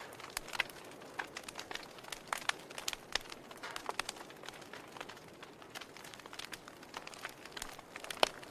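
Wood fire burning in a fireplace, crackling with irregular small pops over a soft hiss, and one louder pop near the end.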